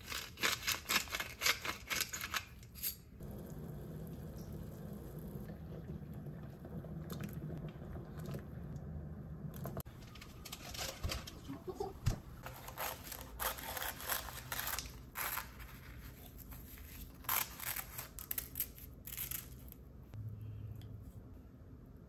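Kitchen cooking sounds at the stove: runs of light clicks and taps from utensils and ingredients, and between them a steady low bubbling from a saucepan of rice-cake soup boiling.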